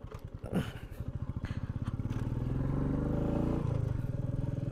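Motorcycle engine pulling away and accelerating, its pulsing note rising in pitch for a couple of seconds before the throttle eases and the pitch drops about three and a half seconds in. A brief sharp sound about half a second in.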